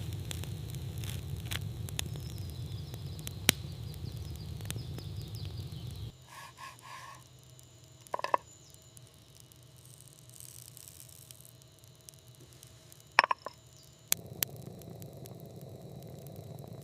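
Campfire crackling over a low rumble, with sharp pops. About six seconds in it drops away suddenly to a quieter stretch with only a few isolated clicks and three short high notes. The crackling fire returns near the end.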